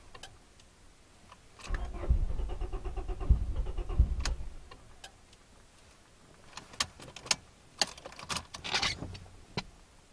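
Honda Prelude engine cranking on the starter for about three seconds without catching, followed by a few sharp clicks. The no-start was traced to the distributor.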